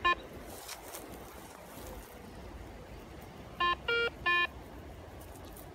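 Metal detector beeping over a freshly dug find: one short beep near the start, then three short beeps in quick succession about two-thirds through, the middle one at a different pitch. The tones signal metal under the coil.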